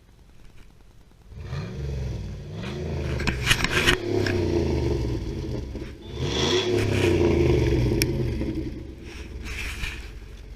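Dodge engine revving up through its exhaust about a second in, dropping briefly in the middle, then rising again before falling away near the end, with a few sharp clicks.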